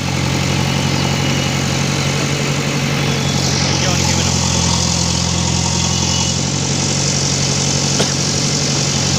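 JCB backhoe loader's diesel engine running steadily, with a brief knock near the end.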